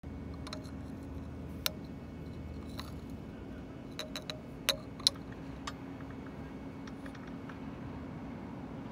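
Sharp, light metallic clicks and taps of a titanium spinning top against its glass display base as it is handled and picked up, a cluster of them loudest about halfway through, over a steady low background hum.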